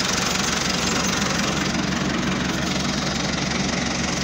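Euro Ford 5880 tractor's diesel engine running steadily.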